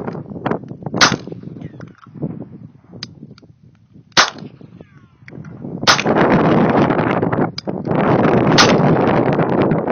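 Four shots from a .380 pistol, a few seconds apart: about a second in, about four seconds in, near six seconds and near the end. From about six seconds on a loud, steady rushing noise runs under the shots.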